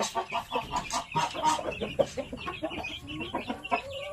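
Chickens clucking: a steady run of short clucks, several a second.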